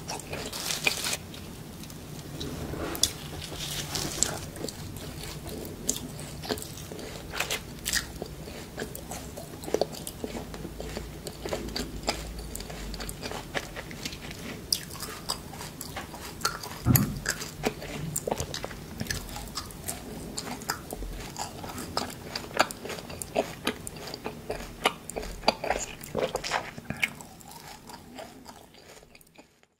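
Close-miked ASMR eating: crisp biting and chewing of fresh grass sprouts, a steady run of crunchy snaps. The sound fades out near the end.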